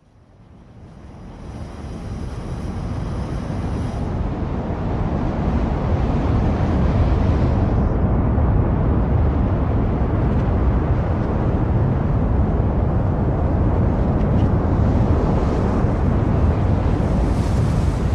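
Deep rushing wind-like rumble, a sound-effect bed that fades in from silence over the first few seconds and then holds steady. A faint high shimmer of thin tones sits over it early on.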